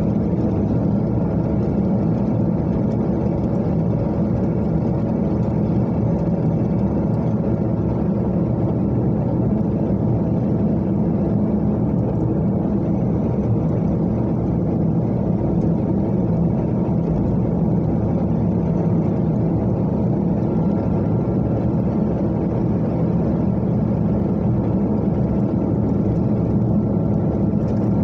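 Car cruising at a steady speed on an expressway: engine and tyre noise as a steady low hum that does not change.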